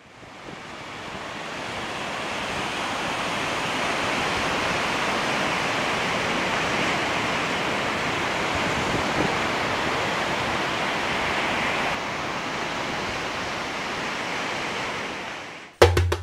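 Pacific Ocean surf washing onto a beach: a steady rush of waves that fades in over the first few seconds. Near the end it cuts off and percussive music with a wood-block beat and bass begins.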